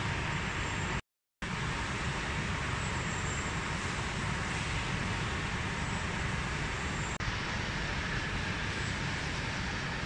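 Steady, even rushing noise, cut to silence for a moment about a second in.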